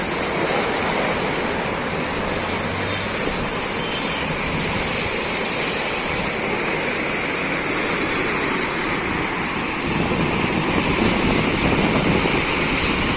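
Rushing river water pouring over a waterfall or dam: a steady, loud wash of noise that swells slightly about ten seconds in.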